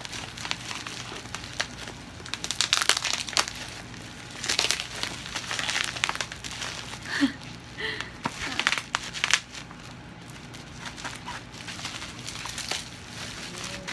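Plastic packaging crinkling and rustling in irregular bursts as it is torn open and pulled off by hand, busiest from a few seconds in until past the middle.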